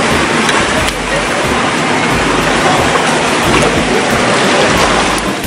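Steady rushing noise of wind and sea surf at the shore.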